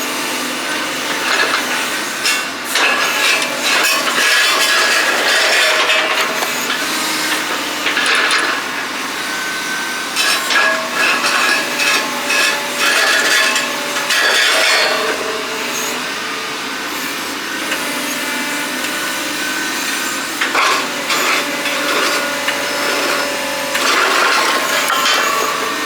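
Steel tines of an excavator rake scraping, grinding and prying against concrete, with repeated cracks and knocks and brief metal-on-concrete squeals, in uneven bursts.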